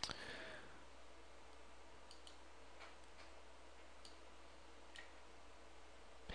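Faint computer mouse clicks over a steady low hum: a sharper click at the start and another near the end, with several faint ticks in between.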